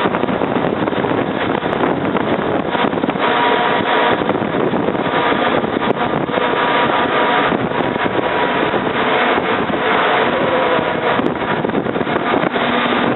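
Storm-force wind from the remnants of a hurricane, blasting the microphone in a loud, steady rush with gusty flutter.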